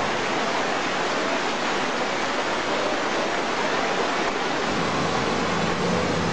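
Fast muddy floodwater rushing across a road: a steady, loud rush of water. About two-thirds of the way through, a low steady engine hum joins it as a truck drives through the flooded road.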